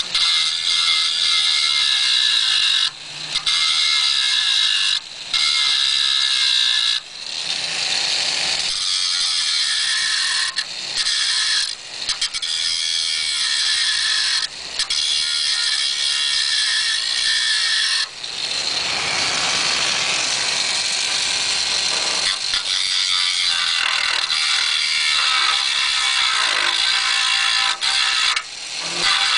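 Electric handheld grinder grinding down the broken-off, mangled end of a steel seat bolt behind the nut, so that a tool can get on the nut. The high-pitched grinding is steady, with short breaks several times.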